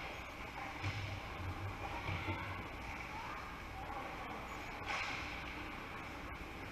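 Ice hockey rink ambience: a steady wash of arena noise with faint distant voices, and a sharp knock about five seconds in, typical of a puck or stick striking.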